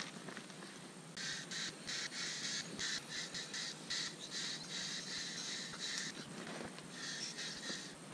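A bird calling in a rapid series of short, high notes: one long run, then a shorter run near the end.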